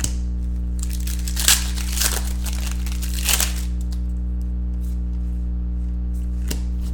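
A foil trading-card pack being torn open, its wrapper crinkling in a few rustling bursts during the first three and a half seconds. A short click comes near the end, and a steady low hum runs underneath.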